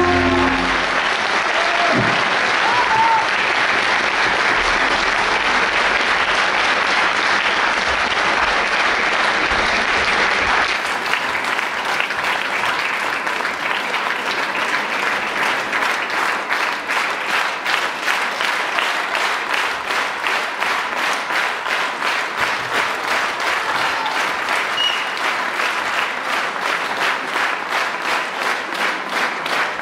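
Large audience applauding, which about halfway through turns into steady rhythmic clapping in unison.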